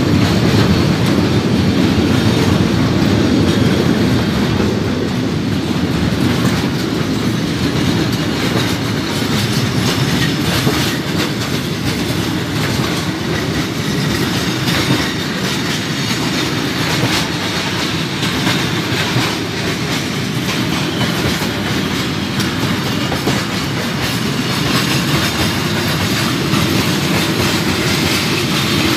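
Freight train's covered wagons rolling past close by: a steady, loud low rumble of steel wheels on the rails.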